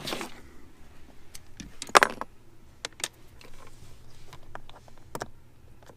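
Scattered small clicks and knocks from handling things inside a car, the loudest a sharp knock about two seconds in, over a faint steady hum.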